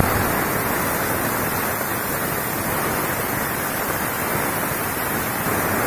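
Chopped tomatoes sizzling steadily in hot oil in a frying pan, just after going in.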